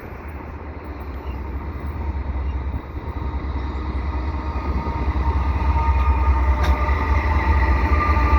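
Pair of CN AC44C6M diesel locomotives leading a freight train, their deep rumble growing steadily louder as they approach. A steady high whine joins in from about five seconds in.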